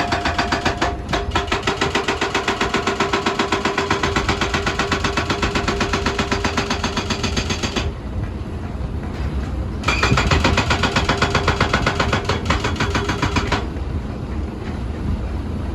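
Excavator working with a fast, even clatter of about five beats a second over its engine. The clatter stops about 8 seconds in, returns about two seconds later, and stops again near 13.5 seconds, leaving a lower engine rumble.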